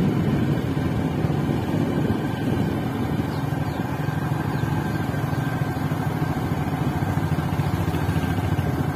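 Steady engine and road noise heard from inside a moving vehicle driving along an unpaved road.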